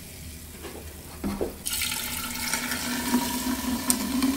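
Sparkling water poured from a measuring jug into a large glass dispenser jar over ice cubes: a light knock about a second in, then a steady splashing pour from about a second and a half in.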